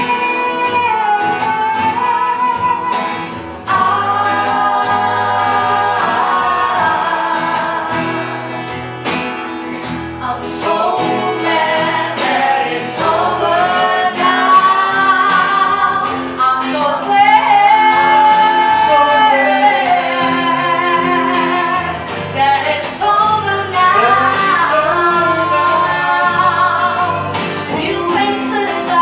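A woman singing live into a microphone, with long held notes that slide and waver, over a strummed acoustic guitar.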